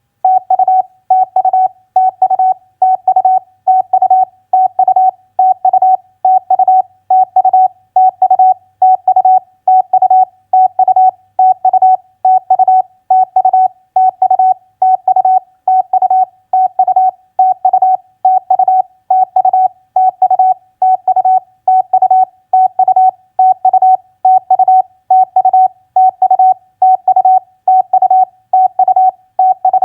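Morse code at 28 words per minute: a single steady beep keyed on and off rapidly in short groups with brief gaps between them, spelling out common contact abbreviations such as TU, FB and CUAGN.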